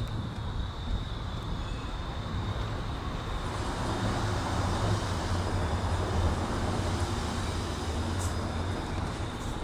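Low steady rumble of an approaching vehicle, growing slowly louder, with a thin steady high tone running above it.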